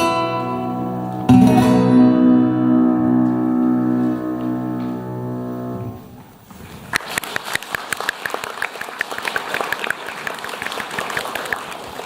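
The end of an instrumental piece on a plucked string instrument: a last chord struck about a second in rings for several seconds and is then stopped. After a short pause the audience applauds.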